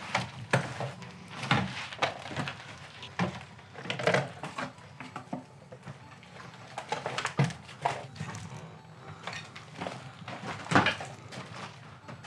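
Footsteps crunching and scuffing over rubble and broken debris on a floor, in an irregular walking rhythm with one louder knock about three-quarters of the way through, over a low steady hum.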